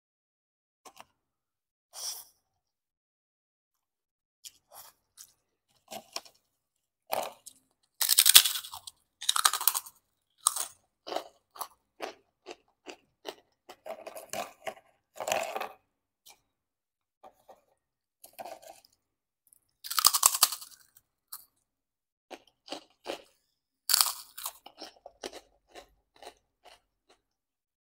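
Close-miked eating: loud, crisp crunching as bites are taken from fried kerupuk crackers, several times over, the biggest about eight, twenty and twenty-four seconds in, with quieter chewing of rice and fern-shoot curry between them.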